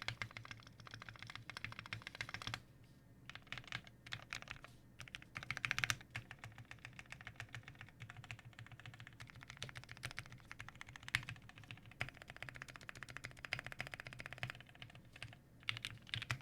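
Typing on a plateless IDB60 mechanical keyboard with lubed and filmed vintage Cherry MX Black linear switches, Invyr UHMWPE stems and doubleshot Cherry keycaps: rapid runs of keystrokes with short pauses about three seconds in and near the end, and a few louder strokes.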